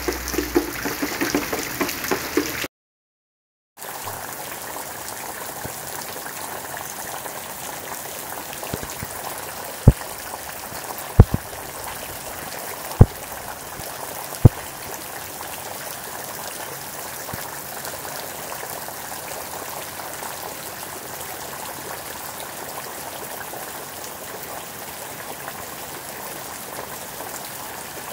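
Steady rain falling on wet ground and puddles, an even hiss. A few seconds in the sound cuts out for about a second and the rain resumes. Between about 10 and 15 seconds in come four sharp taps, louder than the rain.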